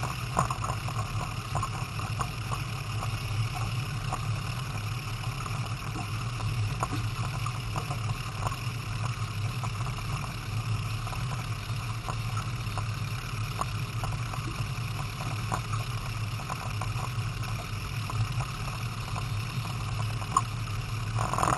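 Boat under way on the water with a steady low hum.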